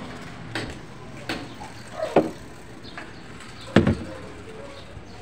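Scattered sharp knocks and clicks, the loudest a heavy thump about four seconds in.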